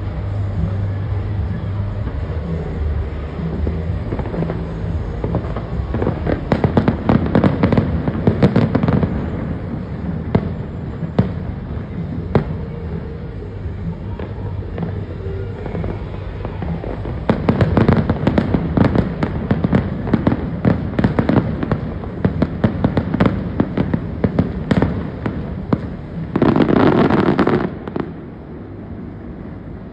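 Fireworks display: rapid volleys of crackling bangs and pops, densest about six to nine seconds in and again from about seventeen to twenty-five seconds in, over a steady low hum. Near the end a loud rushing noise lasts about a second and a half before the sound dies down.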